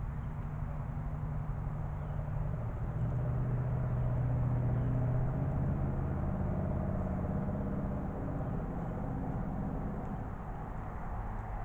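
Distant engine hum with a steady pitch, swelling to its loudest about halfway through and fading again, as of a vehicle passing some way off.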